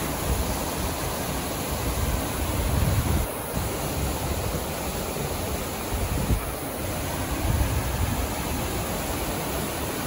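A small mountain waterfall rushing steadily down a granite cascade into the creek, with a few low rumbles on the microphone.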